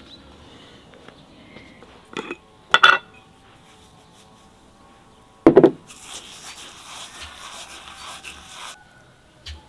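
Kitchenware being handled: a few sharp knocks and clinks, one leaving a brief ringing tone, then a louder knock and a couple of seconds of scraping.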